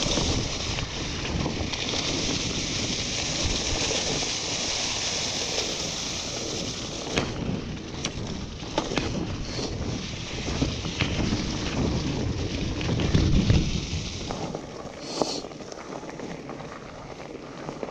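Fatbike rolling fast over a dirt forest trail: tyre rumble and rattling of the bike, with a scattering of sharp knocks, and wind buffeting the microphone. A heavy rumble near the middle is the loudest part, then it quietens for the last few seconds.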